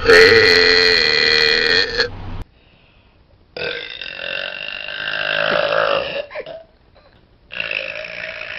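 A woman belching three times, long drawn-out burps of about two seconds each, the first the loudest and held at a steady pitch; the third begins near the end.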